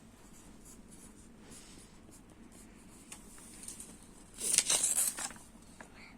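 Writing on paper: a short scratchy run of strokes lasting about a second, starting about four seconds in.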